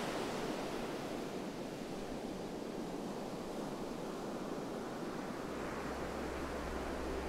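Steady rush of ocean surf. About five seconds in, a low steady hum joins it.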